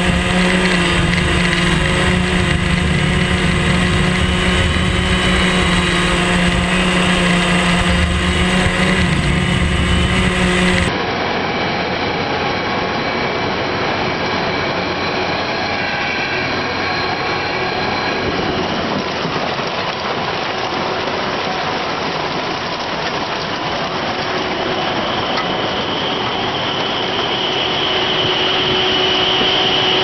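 Potato harvesting machinery running: a steady machine hum with several held tones, changing abruptly about 11 seconds in to the rougher, noisier run of a tractor-drawn potato harvester lifting potatoes onto its conveyors.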